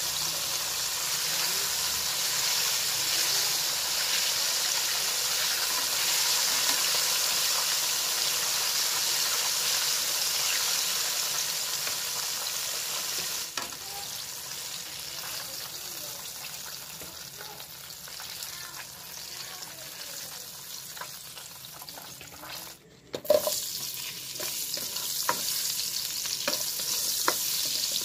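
Cornstarch-coated chicken pieces frying in hot oil in a wok: a steady sizzling hiss that grows quieter about halfway through as the pieces are lifted out with tongs. Near the end, after a short break, comes a sharp knock, then a few light clicks of a utensil against the pan.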